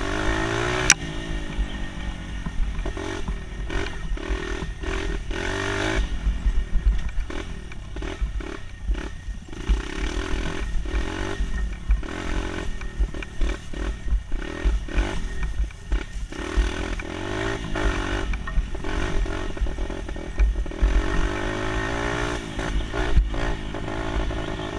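Dirt bike engine being ridden over hilly trails, repeatedly revving up and easing off, with frequent knocks and rattles from the bike over bumps.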